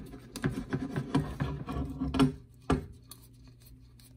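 Small screw being turned into the dropout insert plate of a Fox fork lower with a 2.5 mm screwdriver: quick rubbing and ticking of the tool turning the screw, with one sharper click about two and a half seconds in, then a few fainter ticks.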